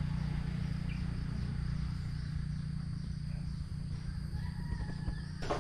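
Outdoor ambience: insects droning steadily over a constant low rumble.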